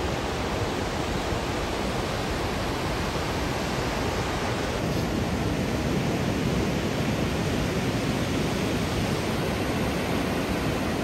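Ocean surf breaking and washing up the beach, heard as a steady rushing noise.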